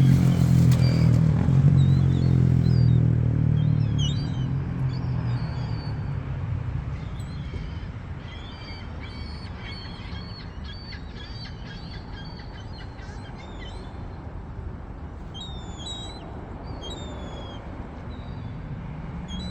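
Gulls calling in many short, high cries that carry on throughout. At the start an engine's hum is louder, then fades away over the first several seconds.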